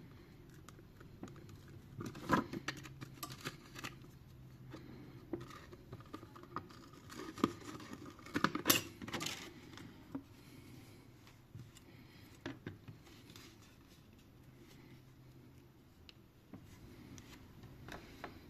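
Back glass cover of a phone being lifted by hand and its adhesive tape peeled from the frame: scattered light crackles and clicks, with a few sharper taps.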